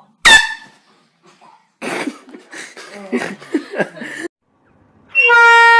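A handheld air horn goes off about five seconds in: one loud, steady blaring tone held to the end. Before it there is a sudden sharp burst just after the start and about two and a half seconds of rough, noisy vocal sounds from a person.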